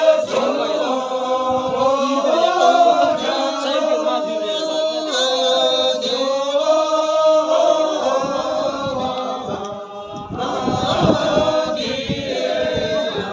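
A group of voices chanting a Buddhist prayer together, held on a fairly steady pitch that bends only slightly, with a short dip about ten seconds in.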